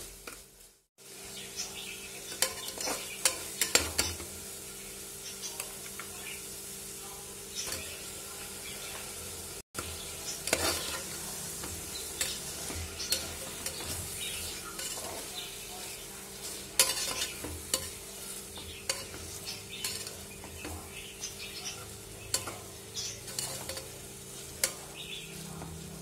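Chicken, onions and tomatoes sizzling in oil in a pressure cooker, stirred with a perforated steel spatula that scrapes and clicks against the pot again and again. The sound cuts out briefly twice, about one second in and near ten seconds in.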